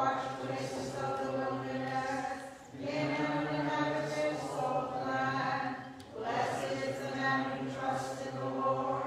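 Byzantine-rite liturgical chant sung by voices in long held notes, three phrases with brief breaks between them.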